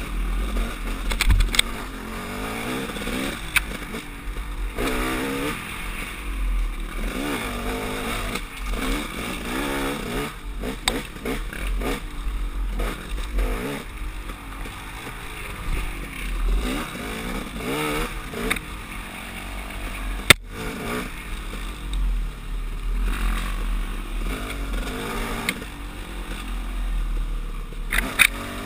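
KTM 300 XC-W two-stroke dirt bike engine revving up and down as it is ridden along a rough woods trail, with wind rumbling on the microphone. The bike clatters over roots and ruts, with a sharp knock about twenty seconds in.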